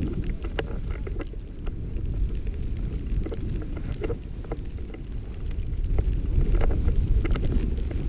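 Wind rumbling on a GoPro's microphone as a snowboard rides through deep powder, with scattered small clicks and ticks. The rumble eases about halfway through and builds again toward the end.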